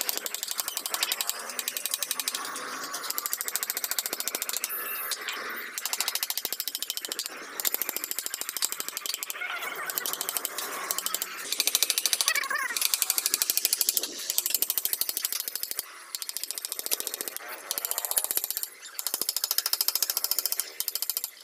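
Small hammer tapping rapidly on a wood-carving chisel as it cuts a relief pattern into a wooden panel, a fast run of light taps with a few short pauses.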